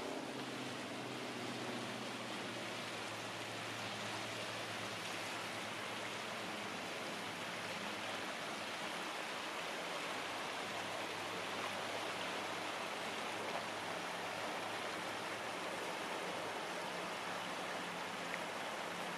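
Small creek rushing over shallow riffles: a steady, even rush of water.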